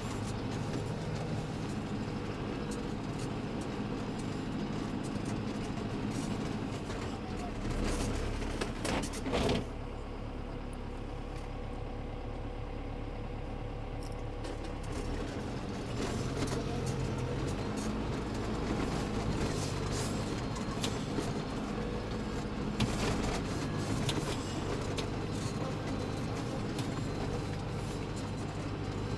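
John Deere tractor's diesel engine running steadily under load while pushing a three-metre Springer snow plough through fresh snow, with a brief loud clatter about nine seconds in and a shift in the engine note about halfway through.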